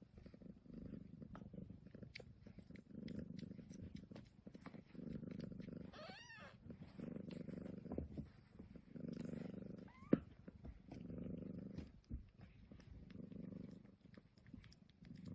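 Domestic cat purring close up, its rumble swelling and fading about once a second with each breath. A short pitched sound glides up and down about six seconds in.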